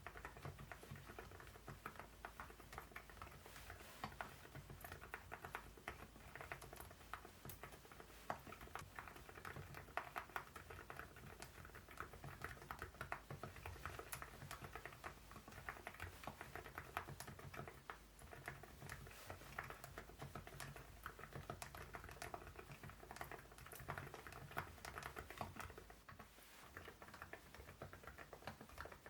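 Quiet, continuous typing on an Epomaker Galaxy80 mechanical keyboard with Epomaker Nude Rosa silent switches and MOA-profile keycaps: a dense run of soft, muted keystrokes.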